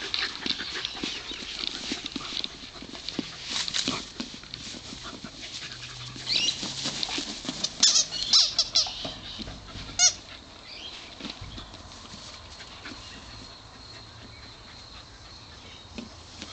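Squeaky dog toy squeaking in short, high, pulsing squeaks several times, about six to ten seconds in, as a Manchester Terrier plays with it. Scattered clicks and knocks come before.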